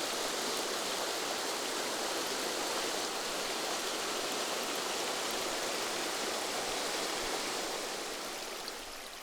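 Small waterfall and stream rushing steadily, a light flow with little low rumble, fading slightly near the end.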